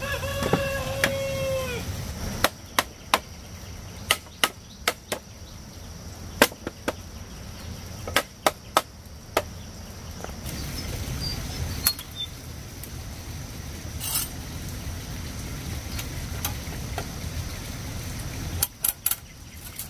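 Sharp wooden knocks at an uneven pace: bamboo rails being driven into the uprights of a bamboo chair frame with a wooden mallet. A chicken calls once at the start.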